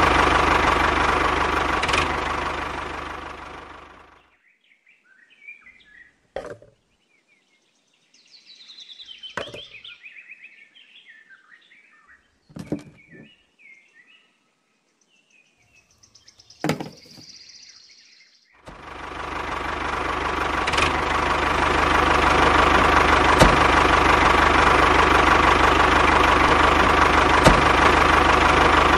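Small engine of a miniature DIY model tractor running steadily, then fading away over the first few seconds. A long quiet stretch follows, broken by four sharp knocks and faint high chirps. The engine sound rises again late on and runs steadily.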